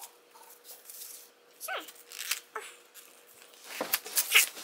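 Paper gift bag and cardboard box being handled and opened, sped up: scattered short rustles and scrapes, louder near the end, with a couple of brief squeaky vocal sounds in between.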